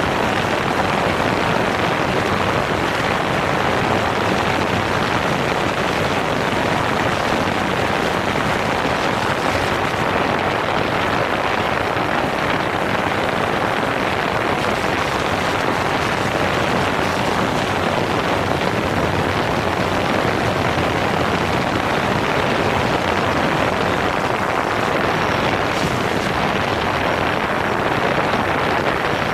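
DJI Phantom 4 quadcopter in flight, heard from a camera mounted on the drone itself: a steady, loud rushing of propeller wash and wind blowing over the microphone.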